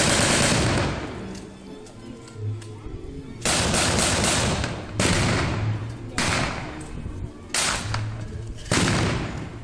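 Blank gunfire at a battle reenactment: about six sharp bangs at uneven intervals, each with a long echoing tail, and a quick cluster of several shots about three and a half seconds in.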